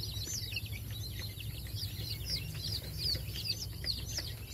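A brooder full of young chicks peeping continuously, many short high chirps overlapping each other, over a steady low hum.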